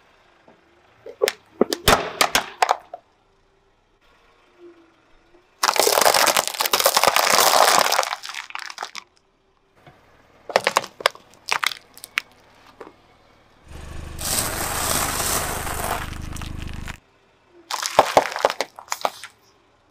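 A car tyre rolling over and crushing objects one after another, with clusters of sharp cracks and snaps and two longer stretches of dense crunching. The items include a plastic dustpan, a cardboard gift box and a heap of round green fruits.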